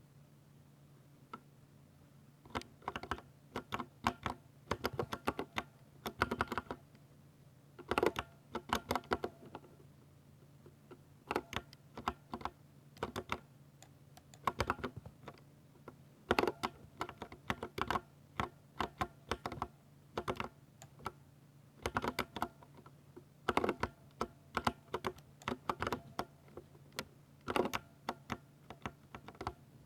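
Typing on a 60% mechanical keyboard with silver switches: quick, irregular runs of keystrokes in bursts, with short pauses between them. A faint steady hum sits underneath.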